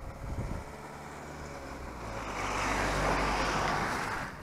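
A van driving past on a nearby road: engine and tyre noise swells to a peak about three seconds in, then fades away.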